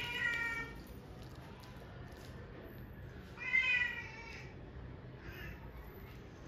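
Domestic cats meowing: one meow at the start, a louder, longer meow about three and a half seconds in, and a faint short one just after.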